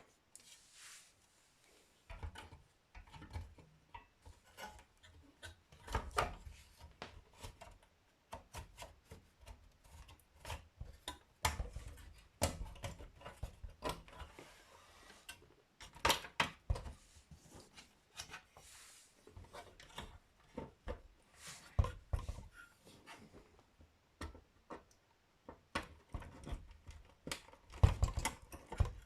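Irregular clicks, knocks and scraping of handled plastic and metal parts as a Macintosh SE/30 logic board is fitted into its case.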